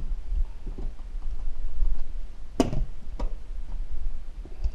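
A few light knocks and clicks as dust-collection fittings are handled and fitted together, with one sharp click about two and a half seconds in, over a steady low rumble.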